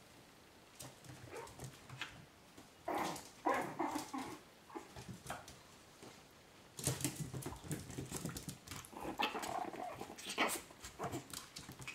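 Chihuahua puppies making small dog sounds as they play-fight, in one spell about three seconds in and a longer one from about seven to eleven seconds. Small clicks and scuffles run between them.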